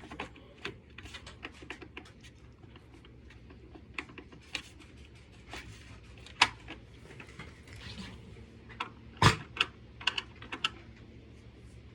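Irregular light clicks and taps from hands handling small hardware, with a few sharper knocks, the loudest about nine seconds in.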